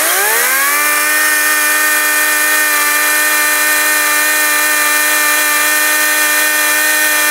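ES Industrial LCHS1454 54V cordless chainsaw with a brushless motor, spinning up to full speed in about the first second, then running steady with no load: a high whine over chain hiss. The saw is being run freely to check that bar oil is being fed to the chain.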